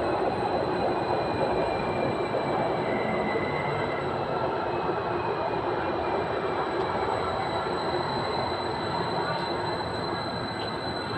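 Electric multiple-unit passenger train running past the platform close by: steady rumble and wheel noise with a faint whine slowly falling in pitch, easing off slightly near the end.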